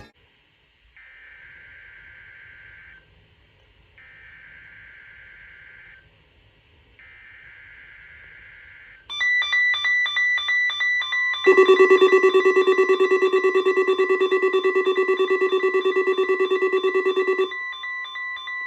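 NOAA Weather Radio test signal: three short bursts of SAME digital header data, about two seconds each and a second apart. From about nine seconds in, weather radio receivers go off with pulsing alert beeps, and a loud buzzing alarm sounds between about 11 and 17 seconds. Under them runs a steady warning alarm tone, which is still going at the end.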